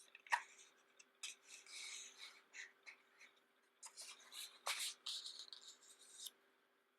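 Pages of a thick photobook being turned and handled: irregular paper rustling and sliding with a few sharp taps, the sharpest near the start, dying away a little after six seconds in.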